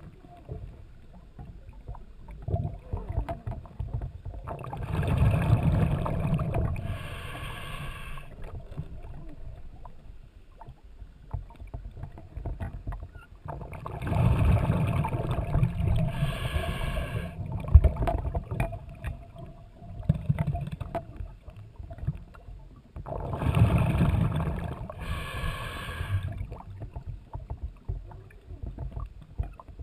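Scuba diver breathing through a regulator underwater: three slow breaths about nine to ten seconds apart, each a rush of exhaled bubbles followed by a short hiss.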